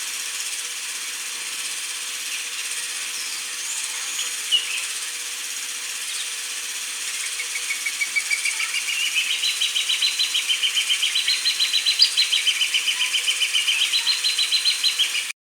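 Crowned hornbill calling: a fast run of whistled notes, about six a second, that starts some seven seconds in and steps up and down in pitch, over a steady high background hiss. The recording cuts off abruptly near the end.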